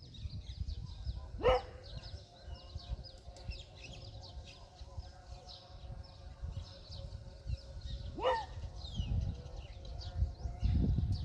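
Small birds chirping on and off, with two short, loud calls that sweep sharply in pitch, about a second and a half in and again about eight seconds in, over a low rumble that swells near the end.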